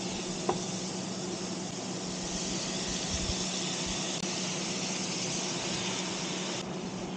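Food frying in sesame oil in a pan on an induction hob: a steady sizzle that cuts off suddenly just before the end, over a low steady hum.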